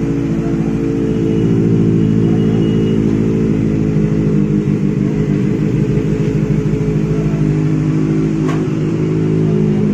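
Benelli motorcycle engine idling steadily after its first service, with a single faint click near the end.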